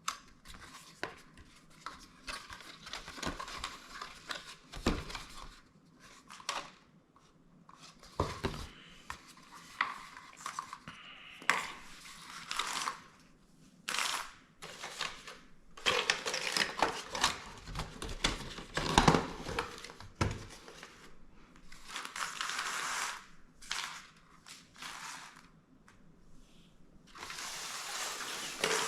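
Handling of a cardboard advent calendar and its coffee capsules: irregular rustling and crinkling of packaging with light clicks and clatter, and a few heavier knocks.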